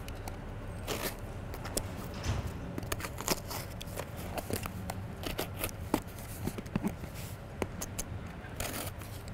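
A bicycle's cardboard parts box being opened and its parts handled: irregular scrapes, rustles and light clicks, with a longer rustle about a second in and another near the end.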